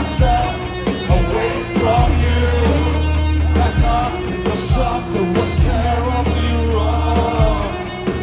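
Live rock band performing: sung vocals over distorted guitars, bass and drums, heard loud through a crowd recording.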